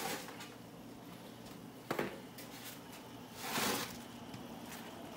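Crawfish tipped from a foam tray into a stockpot of boiling water: a sharp tap about two seconds in, then a brief rushing splash a second and a half later.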